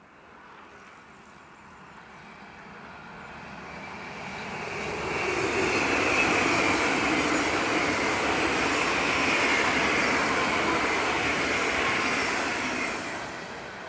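Yellow double-deck electric passenger train passing at speed. The rushing of wheels on rails grows over about five seconds, stays loud for about seven more, then begins to fade near the end, with a high whine that falls slightly in pitch as the train goes by.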